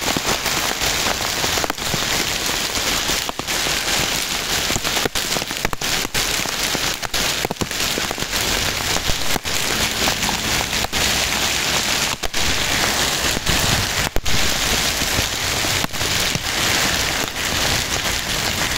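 Heavy hail, stones about 2 cm across, falling with rain and pelting an asphalt road: a dense, steady hiss of impacts.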